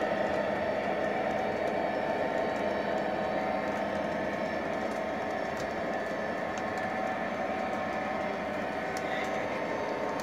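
O gauge model train running on the layout: a steady electric motor and gear whine with the wheels rolling on the track, and a few light clicks along the way.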